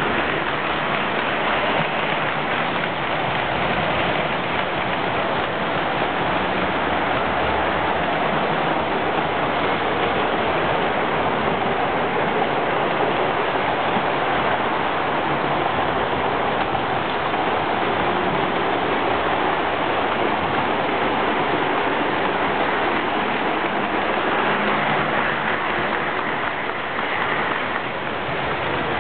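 Model train running on the layout's track, an even steady whirring noise of wheels and motor with no distinct beat.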